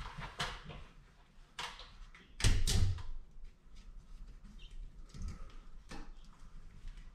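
Scattered knocks and rattles from someone climbing a stepladder and handling the metal hooks and buckles of ceiling-hung straps. The loudest is a heavy thump about two and a half seconds in, and lighter clicks and knocks follow.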